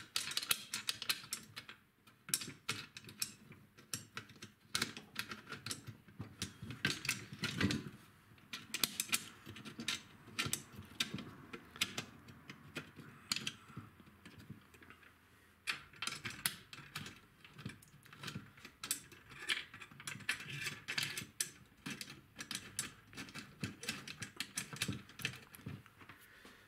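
Irregular small metallic clicks and ticks of drum hardware being handled and turned, as the kick drum pad's tension rods are worked with a drum key to tension the skin.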